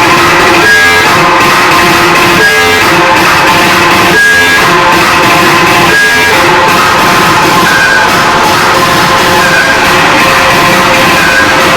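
Loud music played through a DJ sound system at a sound check, held at a constant, very high level. A short high note recurs every couple of seconds in the first half.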